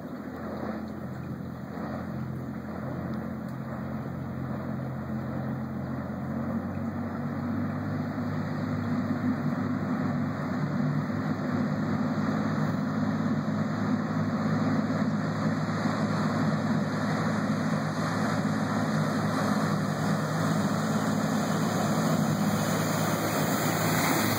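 Diesel engine of a Duffy 42 lobster boat running hard at speed, growing steadily louder as the boat closes in. Near the end, the rush of its bow spray and wake joins in as it passes close.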